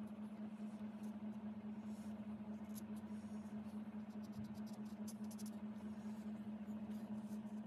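A steady low hum, with faint scratchy ticks of a bamboo-handled brush tip working on card, in clusters about three seconds in and again around five seconds.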